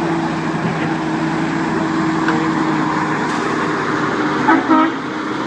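Concrete pump truck's diesel engine running steadily under load while pulling a stuck pump truck. Near the end come two short, loud pitched blips.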